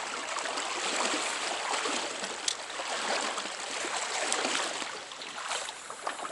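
Small trout stream running with a steady rushing of water, with a couple of brief clicks along the way.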